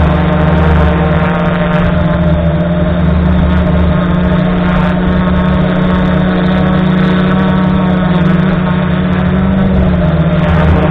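F450 quadcopter's brushless motors and propellers running steadily, heard from the camera mounted on the drone itself, a loud multi-tone buzz with small shifts in pitch as the throttle changes.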